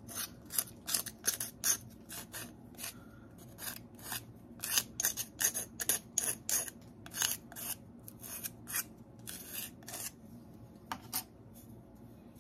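Dried glaze being scraped off the unglazed bottom of a clay tumbler with a small rib, in quick short scraping strokes, about three a second, thinning out in the last few seconds: the foot being cleaned of glaze before firing.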